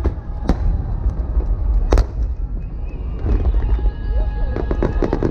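Fireworks finale: aerial shells bursting over a continuous deep rumble, with two sharp loud bangs about half a second and two seconds in. Dense crackling follows in the second half, with music heard through it from about three seconds in.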